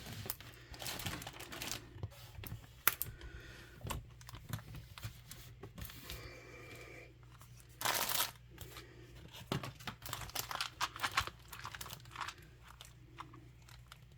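Plastic packaging of a diamond painting kit being pulled out and handled, crinkling and rustling in irregular bursts, loudest about eight seconds in.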